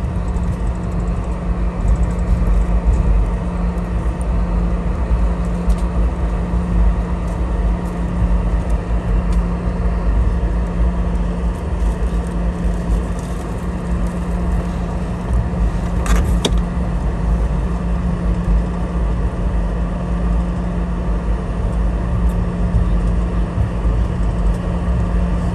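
Cabin noise inside a Boeing 717 taxiing after landing: a steady low rumble of the rear-mounted Rolls-Royce BR715 turbofans at idle and the rolling airframe, with a steady hum and hiss. A single sharp click about two-thirds of the way through.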